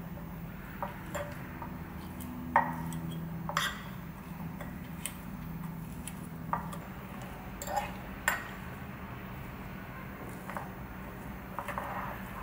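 Metal fork clinking and scraping against a ceramic bowl while mashing boiled potatoes, in scattered sharp clinks, with a low steady hum underneath.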